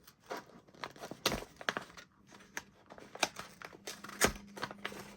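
Gift wrapping crinkling and rustling as a small wrapped present is opened by hand, in a string of irregular sharp crackles.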